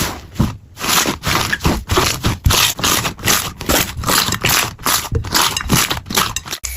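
Slime being handled: a fast, irregular run of crackly, scraping squishes that cuts off abruptly just before the end.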